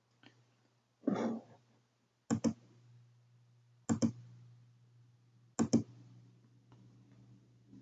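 Computer mouse button clicked in quick pairs, three double-clicks about a second and a half apart, over a steady low hum. A brief rustle comes about a second in.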